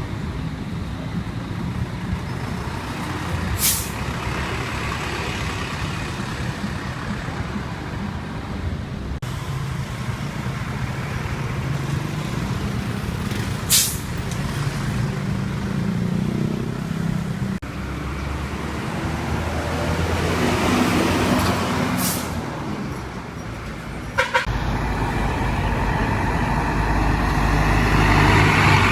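Hino bus diesel engine running, broken three times by a short, sharp air hiss, the Hino 'sneeze' of the air brake system letting off air: about 4, 14 and 22 seconds in. Near the end the engine grows louder.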